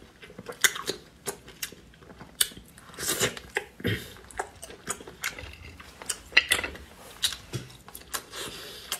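Chewing and wet mouth sounds of someone eating grilled oysters off the shell: irregular short clicks and smacks, with a few longer wet bursts.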